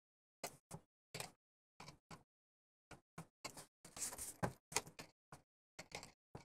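Chopped-up time-lapse audio of workbench handling: well over a dozen brief snippets of clicks and clatter from hand tools, steel bolts and a plastic box lid, each cut off into dead silence, with a slightly longer run of rattling a little past the middle.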